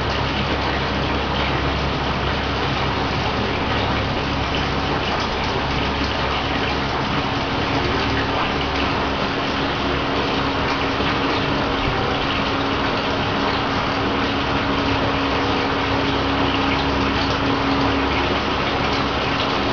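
High-pressure LPG burner firing under a large wok, giving a steady rushing noise with a faint low hum.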